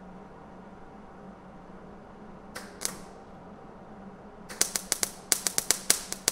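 Wire-feed (MIG) welder tack-welding thin sheet-steel floor panel: a brief crackle about two and a half seconds in, then a rapid run of sharp crackling pops from the arc near the end.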